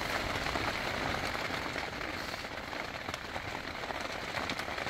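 Steady rain falling on the fabric of a tent, heard from inside.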